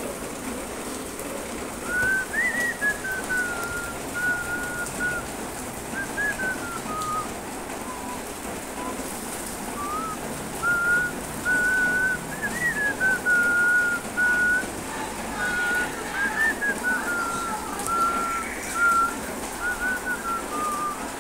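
A person whistling a slow tune: a single clear wavering note that holds, steps up and down and makes small rises, starting about two seconds in and running on, over a steady background hiss.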